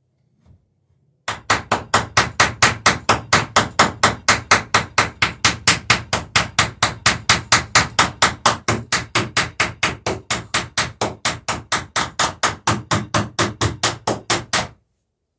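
Hammer peening a boat rivet on the lapped planking of a wooden dory, struck in a fast, even run of about five blows a second that starts about a second in and stops suddenly near the end.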